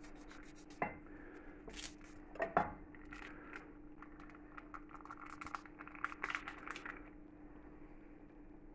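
Kitchen handling sounds from utensils, a bowl and packaging: a couple of sharp knocks, the loudest about two and a half seconds in, then a run of small clicks and rustling from about four to seven seconds in, over a steady low hum.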